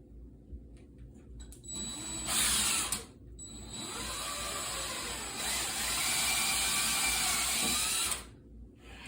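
Power drill with a 3/16-inch bit boring holes in drywall: a short run of about a second, then after a brief stop a longer run of about five seconds, its motor whine dipping and recovering as the bit bites.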